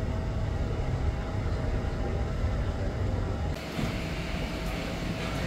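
Low rumble of a KRL commuter electric train approaching a station platform, with a faint steady hum over it. About three and a half seconds in, the sound switches abruptly to a brighter, hissier platform ambience.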